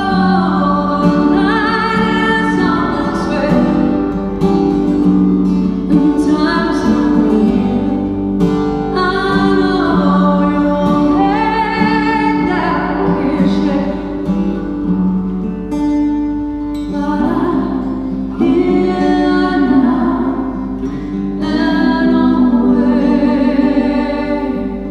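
Live song: a woman singing lead over acoustic guitar accompaniment.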